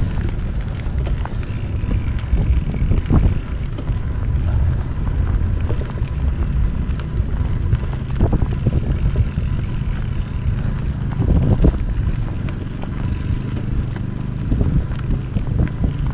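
Mountain bike riding over a rough trail: a continuous rush of tyre and wind noise on the microphone, with frequent knocks and rattles from the bike over bumps.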